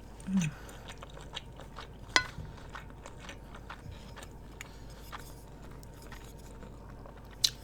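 Close-up eating sounds: a person chewing, with small wet mouth clicks throughout and a short low hum just after the start. Two sharp clicks stand out, one about two seconds in and one near the end.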